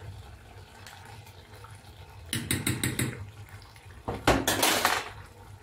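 Kitchen handling sounds: a metal spoon tapping and scraping against a pot or dish several times in quick succession about two seconds in, then a knock and a brief rush of running water.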